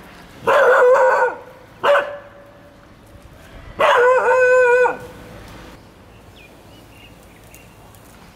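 Indian pariah dog (INdog) giving her typical "snake call", the warning she raises when a spectacled cobra is near: three loud, pitched calls, a long one of nearly a second, a short one, then another long one of about a second.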